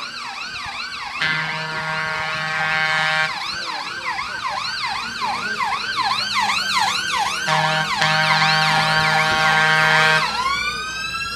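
Fire engine sirens sounding in a fast yelp. A steady horn tone cuts in twice, for about two seconds each time, and near the end the siren shifts to a slower rising wail.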